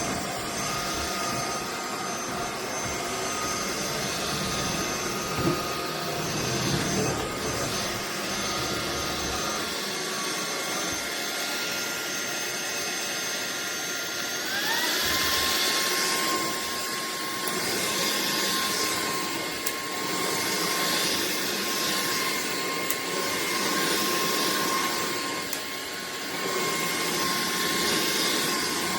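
AlloyMove cordless stick vacuum running, a steady rush of air under a motor whine. The whine rises in pitch about halfway through and holds at the higher pitch.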